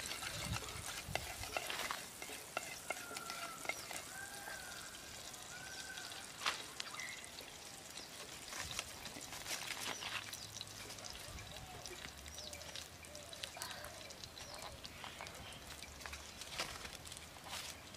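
Oil heating in a pot over an open wood fire: a light sizzle with scattered crackles and pops from the fire and the oil, and a ladle stirring in the pot at the start. A few short animal calls come in about three to five seconds in.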